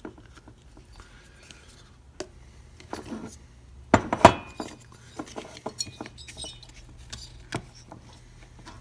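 Small hard parts clicking and clinking as fuel injection components are fitted by hand onto a new chainsaw cylinder, with two sharper knocks close together about four seconds in.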